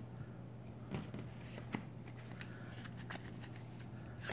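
Tarot cards handled on a wooden table: a few faint clicks and taps of cards, then near the end the deck starts being shuffled. A low steady hum runs underneath.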